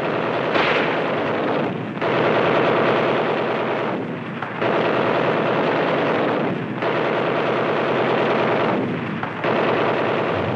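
Rapid machine-gun fire in several long bursts of about two seconds each, with brief breaks between them.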